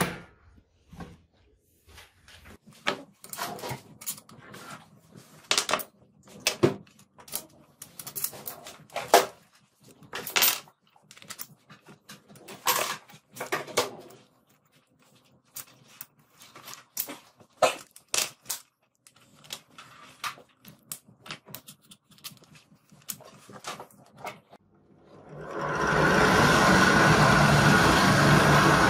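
Irregular clicks and knocks of small plastic, rubber and brass handle parts being handled and fitted together on a workbench. About 25 seconds in, a power drill starts boring into a rod clamped in a vise and runs steadily.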